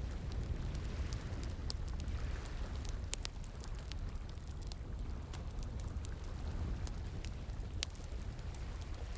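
Wood fire crackling, with frequent sharp pops and snaps at irregular intervals, over the steady rush of flowing water.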